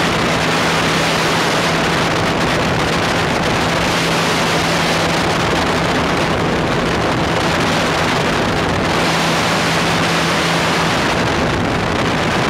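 Ultralight trike's engine and propeller running steadily in flight, a constant low drone under heavy wind rush on the microphone.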